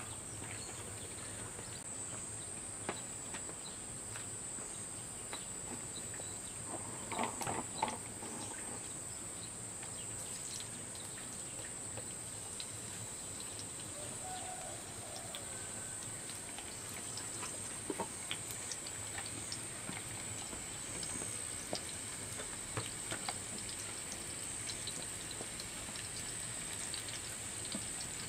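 Steady high-pitched chirring of insects, with scattered light taps and clicks as vegetable slices are laid into an oiled frying pan, a short cluster of louder clicks about seven seconds in.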